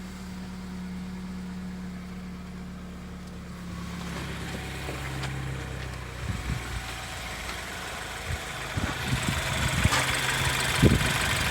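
BMW N20 2.0-litre turbocharged four-cylinder engine idling steadily, starting and running again now that the high-pressure fuel pump is correctly seated. Its note drops slightly and grows louder about four seconds in, and a few knocks come near the end.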